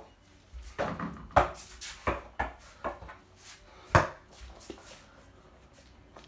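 A run of sharp, irregular knocks and thuds, about eight in three seconds with two louder ones among them, then a quiet stretch. They come from a person moving quickly about a small room while handling a small ball.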